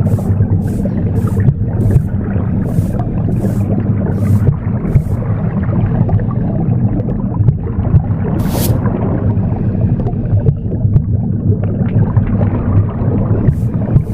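Broom sweeping in short, hissy strokes about every half-second to second, over a steady low rumbling whoosh of womb sound. The sweeping stops after about five seconds, gives one stroke at about eight and a half seconds, and starts again near the end.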